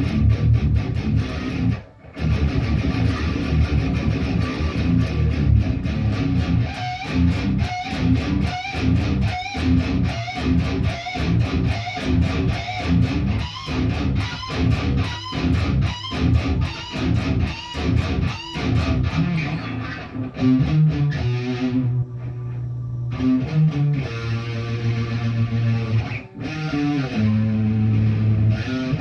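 Guitar being played: chords strummed in a steady, even rhythm, with a brief break about two seconds in, then slower ringing chords and held notes in the last third.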